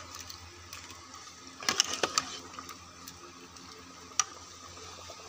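A metal ladle knocking and scraping against an aluminium cooking pot while stirring a curry, with a quick cluster of clinks about two seconds in and a single clink about four seconds in. Underneath is a steady hiss from a pot of water at a rolling boil.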